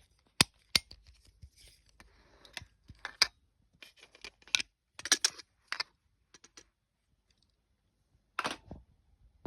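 Plastic wall light switches being handled: a string of sharp clicks with short scraping and rubbing sounds, two crisp clicks in the first second and a cluster of clicks about halfway through.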